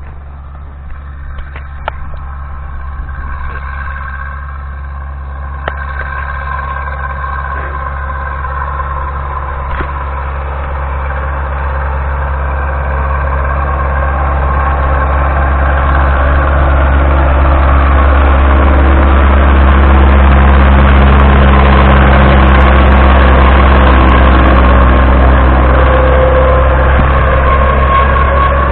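Ursus C-362 tractor's four-cylinder diesel engine running under load as it mows grass with a rotary mower, growing steadily louder over the first two-thirds as it comes closer. A whine rises in pitch near the end.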